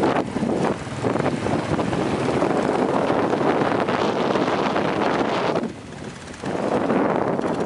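Wind buffeting the microphone of a moving motorcycle, with the bike's engine running underneath. The rushing dies down for about half a second a little before the end, then returns.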